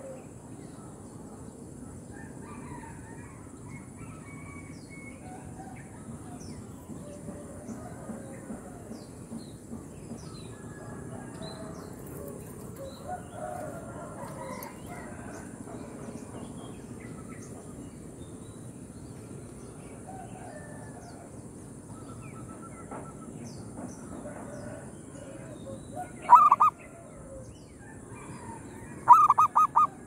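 Zebra dove (perkutut) cooing close by: two short runs of rapid staccato coos, the first about three-quarters of the way through and the second near the end. Faint chirps of other birds sound throughout.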